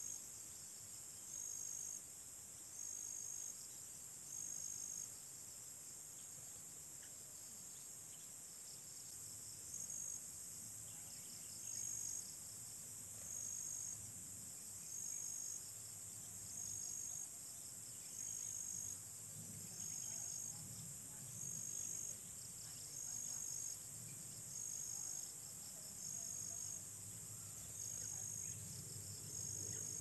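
Insects shrilling outdoors: a steady high-pitched chorus, over which one insect gives a short call about every one and a half seconds. The calls stop about five seconds in and resume about five seconds later.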